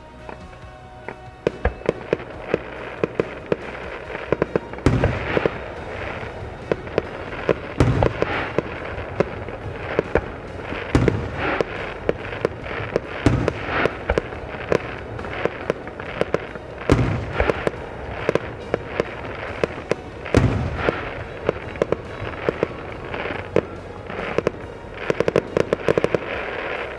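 Aerial fireworks going off: dense crackling and popping, starting about a second in. Deep booms from larger shell bursts stand out about every three seconds, six of them in all.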